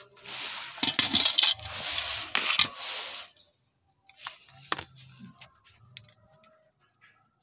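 Suzuki Karimun clutch disc handled on a concrete floor: rough scraping and metallic clinks for about three seconds, then a few light clicks.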